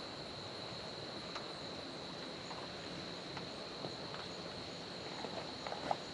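Insects singing in a steady, even high-pitched drone, with a few faint clicks and short squeaks, most of them near the end.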